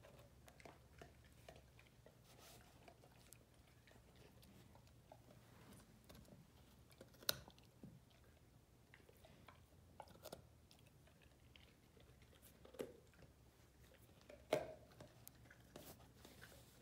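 Great Dane puppy chewing and crunching a raw carrot: faint, irregular crunches and clicks, with a few sharper bites about 7, 13 and 14.5 seconds in.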